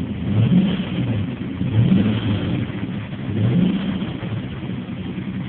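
1992 Nissan Maxima's DOHC V6 engine running with the clutch pedal held to the floor, revved up and back down three times. With the clutch down, the transmission's neutral grinding noise is absent.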